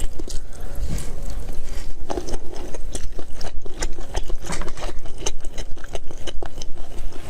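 Close-miked chewing and biting of food: a quick, irregular run of clicks and crunches.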